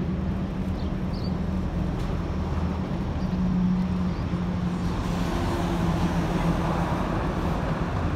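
A large vehicle's engine idling: a steady low hum, with a higher tone joining about five seconds in.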